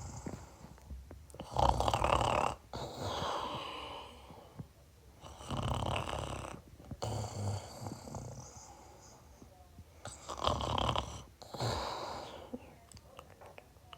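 Snoring: a run of loud, rough snoring breaths, each a few seconds apart, with quieter breathing between them.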